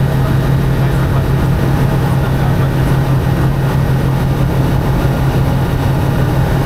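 Light aircraft's piston engine and propeller running steadily: a loud, even drone with a strong low hum.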